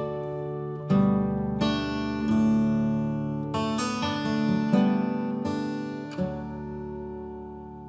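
Background music on acoustic guitar: plucked and strummed chords struck about once a second and left ringing, quieter near the end.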